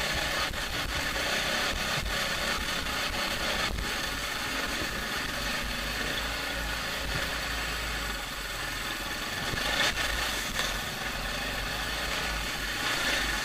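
Dirt bike engine running at low speed while it picks its way up a rocky wash, under a steady hiss on the onboard camera's microphone. A couple of sharp knocks come about four and ten seconds in.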